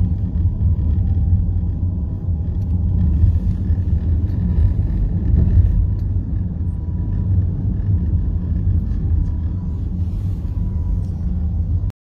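Steady low rumble of road and engine noise heard from inside a moving car.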